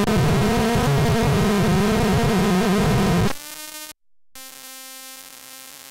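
Homemade Atari Punk Console synth giving a loud, harsh electronic buzz whose pitch warbles for about three seconds. It then drops to a quieter, steady buzzy tone, cuts out for a moment, and comes back as a steady, quieter tone.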